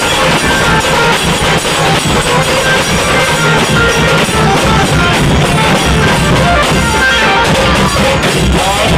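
Loud, steady music with drums and plucked strings.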